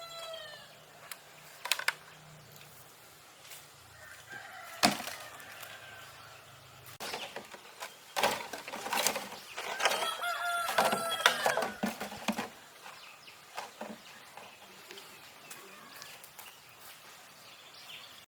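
A rooster crowing, one long crow about ten seconds in, with chickens clucking and a few sharp knocks scattered through.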